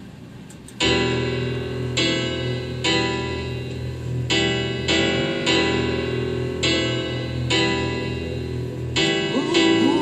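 Piano chords on a keyboard, beginning about a second in and re-struck roughly once a second, each chord left to ring.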